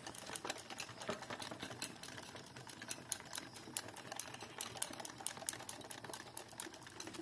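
Wire balloon whisk beating thick strained-yogurt mixture in a glass bowl: quick, irregular clicking of the whisk against the bowl, several clicks a second.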